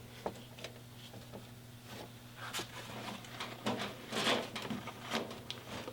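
Hands working small metal parts: scattered light clicks and scrapes, busiest from about halfway through, as cables are fitted into a motorcycle's throttle and choke cable distribution box.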